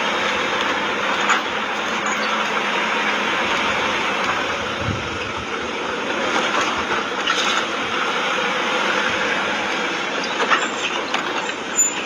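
Car driving over an unpaved dirt road, heard from inside the car: steady engine and tyre noise with occasional knocks from bumps in the road.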